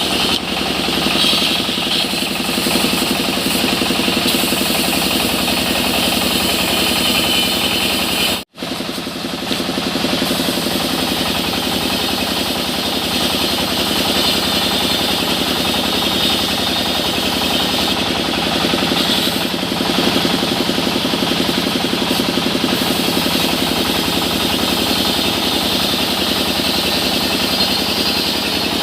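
Engine-driven sawmill machinery running steadily at a loud level, with a brief dropout about eight and a half seconds in.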